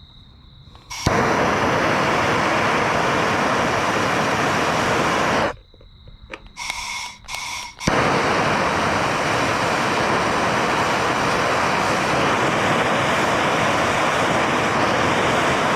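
Handheld propane torch flame burning with a steady loud rush, heating aluminum to melt in a brazing rod. It lights abruptly about a second in, goes out for a couple of seconds around the middle, then is lit again and burns steadily.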